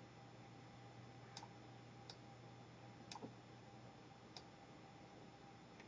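Near silence: faint room hum with four soft computer-mouse clicks, spaced about a second apart over the first four and a half seconds.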